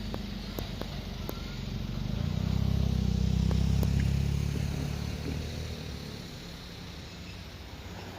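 A vehicle passing with a low rumble that swells about two seconds in, peaks near the middle and fades away, with a few light clicks.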